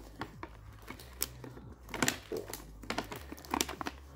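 Plastic packaging of dog chews being handled, giving scattered short clicks and crinkles.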